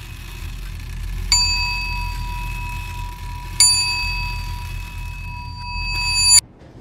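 School bell ringing in two long rings, the first starting about a second in and the second a couple of seconds later, then cutting off suddenly near the end, over a steady low hum. It signals the start of a lesson.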